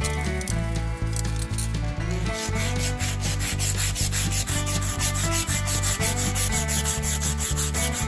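Abrasive cloth strip pulled rapidly back and forth, shoeshine fashion, around a rusty steel drive axle of a lawnmower gearbox, rubbing off the rust in quick repeated strokes.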